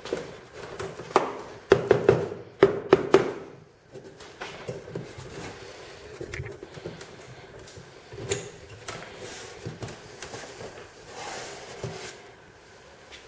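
Pliers twisting copper-wire stitches tight along the seam of a wooden stitch-and-glue kayak hull, drawing the side and bottom panels together. A run of sharp clicks and knocks in the first few seconds, then lighter scattered ticks of metal on wire and wood.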